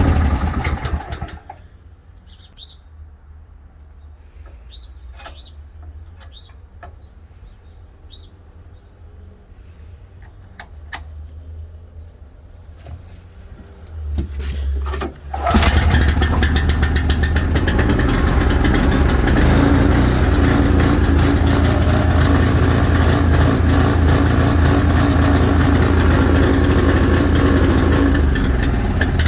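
A vehicle engine cranks and starts about halfway through, then runs at a loud, uneven idle, the rough idle being shown. Before it starts there is only a low rumble with a few bird chirps.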